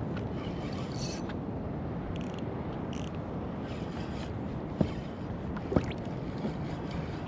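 Steady wash of wind and water around a plastic fishing kayak at sea, with a few brief high hissing bursts in the first half and two sharp knocks about a second apart near the middle.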